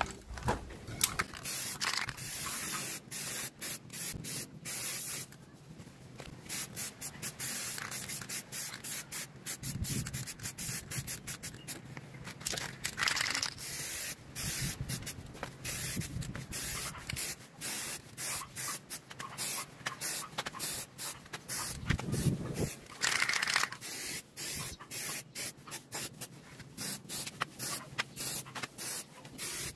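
Aerosol spray can of primer hissing in many short stop-start bursts as it coats a motorcycle's spoked wheel rim. A few dull knocks come as the wheel is turned by hand.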